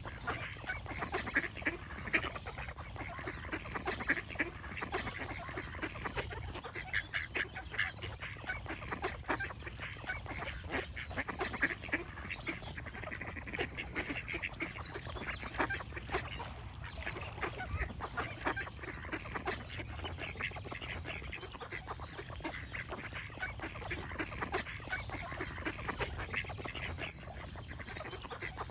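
A flock of ducks quacking continually, many short overlapping calls.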